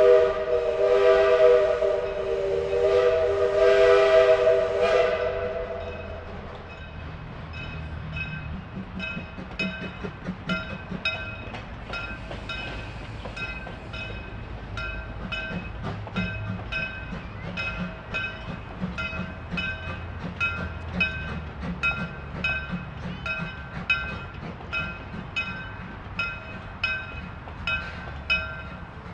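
The whistle of No.25 "Samson", a 1910 Vulcan 0-4-0 steam locomotive, blows one long chord of several notes for about six seconds. Then the locomotive's exhaust chuffs in a steady beat, about one chuff a second, as it pulls the train.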